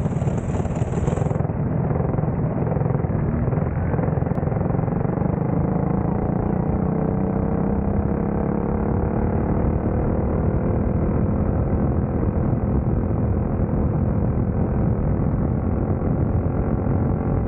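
Onboard sound of a small caged dirt-track race car's engine running steadily, its pitch rising gently through the middle, under a heavy rumbling noise. A high hiss stops about a second in.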